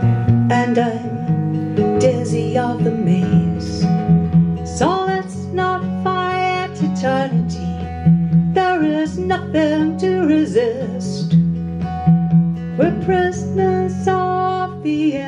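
Acoustic guitar strummed with an electric bass guitar playing low sustained notes beneath it, an instrumental passage of a live folk song.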